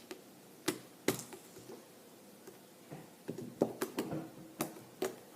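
Scattered light clicks and knocks of things being handled and moved, irregular, with a small cluster of them about two-thirds of the way through.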